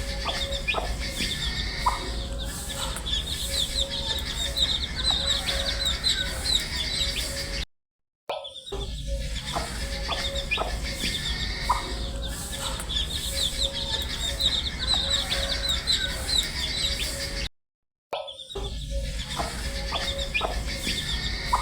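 A brood of baby chicks peeping: many quick, high-pitched cheeps overlapping, with a steady hum underneath. The recording is a short loop that cuts out briefly twice, about every ten seconds.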